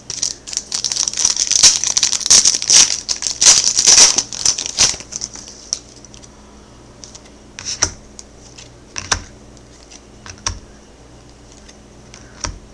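Wrapper of a trading-card pack crinkling as it is torn open and handled, for about the first five seconds. After that come a few separate soft clicks and taps as the cards are handled.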